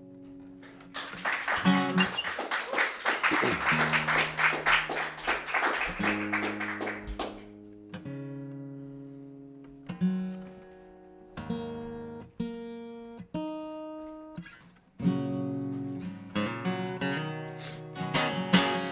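Acoustic guitar strummed for several seconds, then single notes and chords plucked one at a time and left ringing out.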